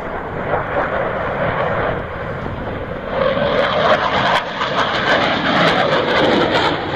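Fighter jet's engines in flight: a steady, loud rushing noise that grows louder about three seconds in and takes on a crackling edge.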